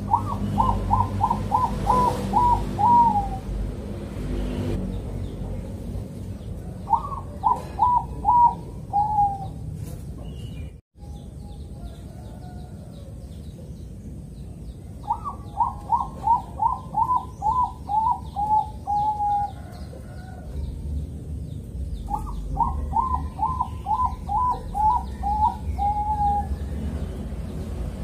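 Bangkok-strain zebra dove (perkutut) cooing: four phrases, each a quick run of short coos that falls slightly in pitch, with pauses of a few seconds between them.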